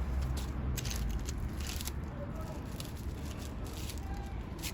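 Irregular light rustles and clicks of foam sheet being cut up and handled, over a steady low background rumble.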